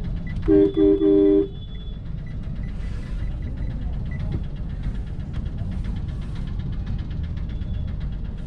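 A car horn honks three times in quick succession about half a second in, the third blast slightly longer. A steady low rumble of jammed street traffic continues throughout.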